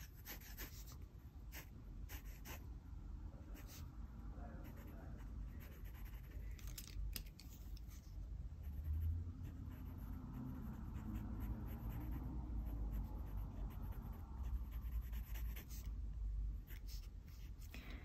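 Faint scratching of a Pentel GraphGear 500 0.5 mm mechanical pencil sketching on sketchbook paper in short, scattered strokes.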